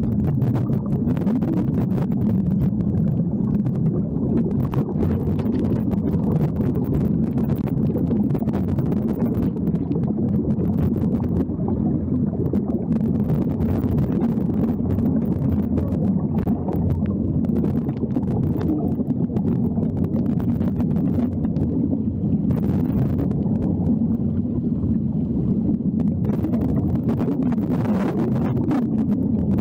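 Steady low underwater rumble and hiss of air bubbling from surface-fed diving helmets, with a couple of brief swells of higher hiss near the end.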